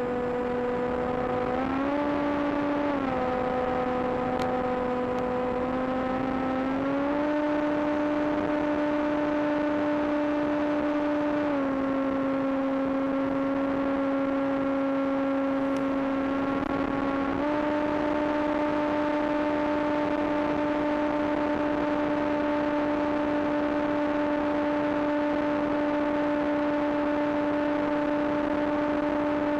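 Electric motor and propeller of an AXN Floater Jet RC plane, heard from on board: a steady whine over hiss. The pitch steps with throttle, rising about two seconds in and dropping a second later. It climbs higher around seven seconds, dips near twelve, and rises again around seventeen seconds to hold there.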